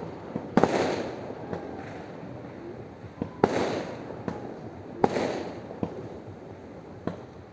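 Fireworks going off: a series of sharp bangs, the three loudest about a second, three and a half seconds and five seconds in, each fading away over a second or so, with smaller cracks in between.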